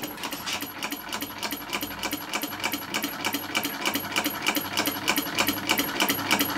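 Two small model solenoid engines running together, an old mercury-switch beam engine and a scratch-built flywheel engine, making a rapid, even clicking at about six clicks a second that grows slowly louder.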